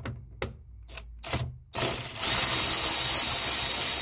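A few light clicks, then a cordless power screwdriver runs steadily for about two and a half seconds, backing out a 7 mm bolt that holds the door speaker housing.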